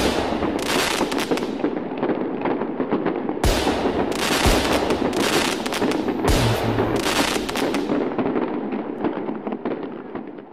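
Fireworks going off: a run of bangs with dense crackling, several loud bursts through the middle, dying away near the end.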